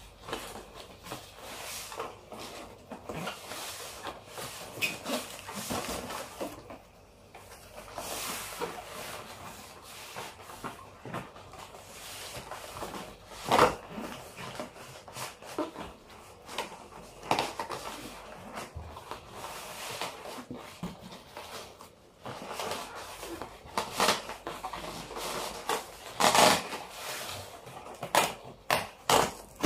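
Corrugated cardboard box being turned over and its flaps opened by hand: irregular rustling and scraping of cardboard, with a few sharper knocks, the loudest about a third of the way in and again near the end.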